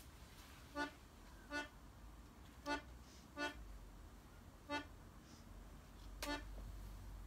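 Accordion playing short, detached chords, six separate stabs spaced unevenly about one to one and a half seconds apart. A low rumble underneath grows louder near the end.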